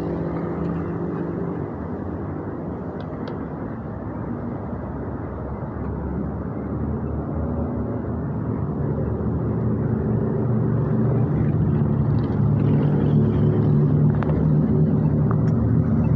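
Road traffic at a busy intersection: vehicle engines running and tyres passing. It grows louder in the second half with a low engine hum from a vehicle close by.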